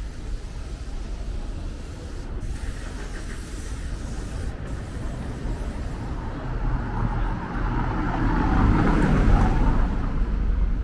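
City street traffic with a steady low rumble, and a vehicle passing close by, growing louder over the last few seconds and easing off near the end.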